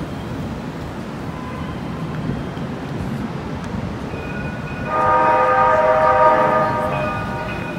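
A vehicle horn sounds once, held for about two seconds starting around five seconds in, over steady city street traffic noise.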